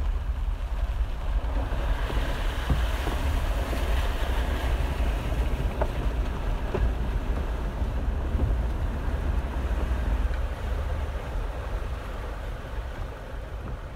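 Jeep Wrangler Unlimited driving through shallow floodwater over the road: a steady low rumble under the hiss and rush of water spraying from the tyres, swelling over the first few seconds and easing near the end.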